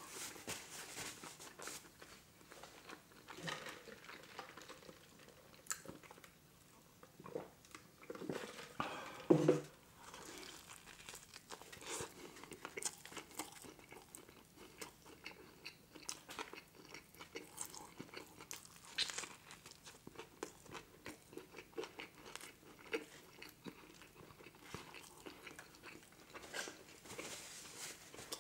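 Close-miked chewing and biting of a McDonald's Grand Mac burger: wet smacking and soft crunches in an irregular run of small clicks, with one louder low sound about nine seconds in.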